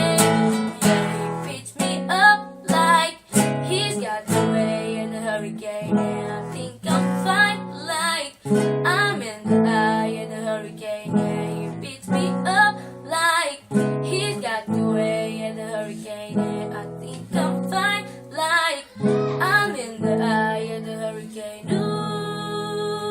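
Acoustic guitar strummed in a steady rhythm, with a woman singing over it. Near the end the chords ring out held.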